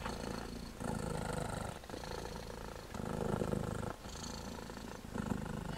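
Cat purring steadily, swelling and easing in cycles about a second long.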